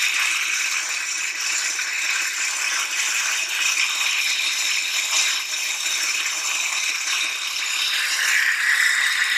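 Serpentine belt tensioner roller on a running engine, heard through a stethoscope probe: a steady, harsh, high-pitched grinding hiss that strengthens near the end. It is the sign of a worn tensioner roller bearing, the main source of the engine's squeal.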